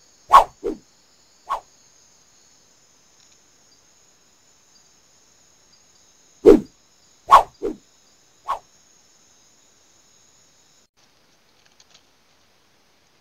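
Short, loud animal calls in a group of four notes, alternating lower and higher, with the group repeated about six seconds later. A steady high insect trill runs beneath them and stops about eleven seconds in.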